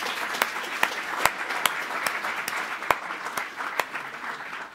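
Audience applauding: many hands clapping with a few louder single claps standing out, dying down near the end.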